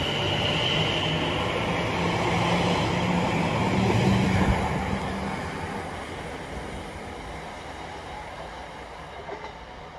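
A train passing, with a steady low hum and a high whine over its rumble, loudest about four seconds in, then fading steadily.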